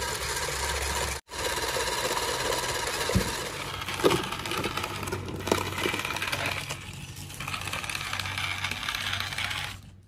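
Small electric motors and plastic gears of radio-controlled toy vehicles whirring steadily, with a few sharp plastic clicks and knocks about three, four and five and a half seconds in.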